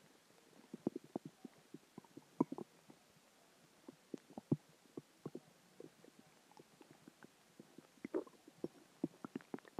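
A person's stomach growling: a scattered run of short, irregular gurgles and pops, thickest about eight to nine and a half seconds in. It is gas and water moving through the gut after dinner.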